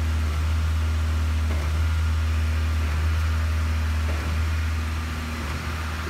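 Steady low drone of an idling engine, unbroken and even.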